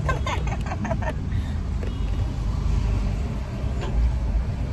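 Low, steady rumble of a car heard from inside the cabin, with a few short clicks in the first second.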